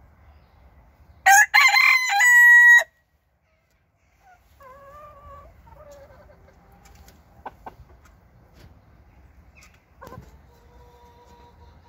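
Cochin rooster crowing once, loud, for about a second and a half, ending on a long held note. Fainter fowl calls follow a few seconds later.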